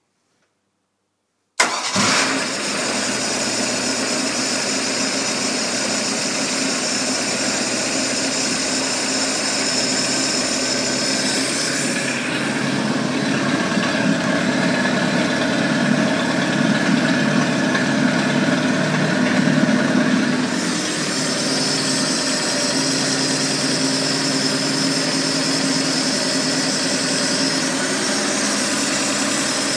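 MerCruiser 3.0 L four-cylinder marine engine, freshly installed and fuel-primed, starting on the first turn of the key. It catches suddenly about a second and a half in and then runs steadily at idle, a little louder for several seconds in the middle.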